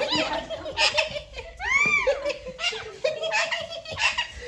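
People laughing hard in repeated bursts, with one high call that rises and falls about two seconds in.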